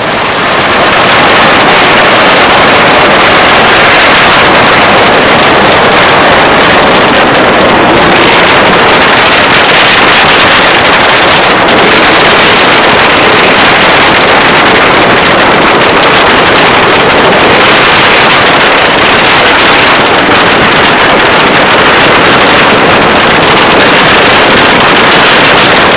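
A long string of firecrackers going off in one continuous, very loud, dense crackle.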